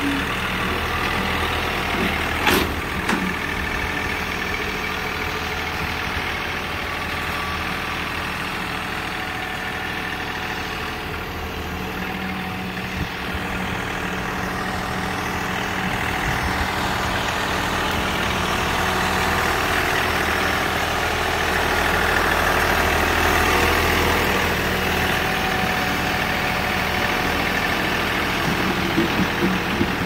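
John Deere 3046R compact tractor's three-cylinder diesel engine running steadily as the tractor drags a land plane over gravel to grade it. There is one sharp knock about two and a half seconds in, and the engine grows somewhat louder about two-thirds of the way through.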